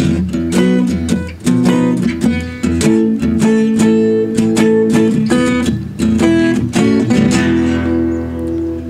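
Acoustic guitar strummed, repeated chord strokes with ringing notes in a steady rhythm.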